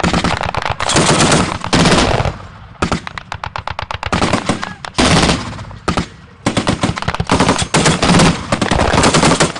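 Loud automatic machine-gun fire: several long bursts of rapid shots with short gaps between them, and scattered single shots in the gaps.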